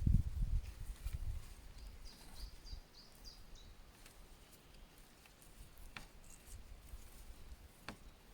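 Quiet outdoor ambience with a small bird giving a quick run of short high chirps in the middle. Low thumps in the first second or so, and two sharp clicks later on.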